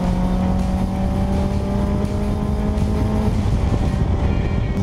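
Motorcycle engine running under way, heard close from a camera mounted on the fuel tank. Its steady tone climbs slowly and changes about three seconds in. Wind and road rush runs throughout.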